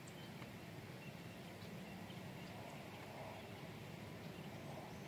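Faint steady outdoor background noise with scattered short, high bird chirps.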